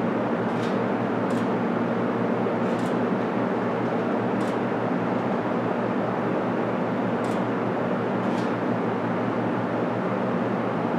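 Steady hum and hiss of a ventilation system running, with a few faint, brief ticks scattered through it.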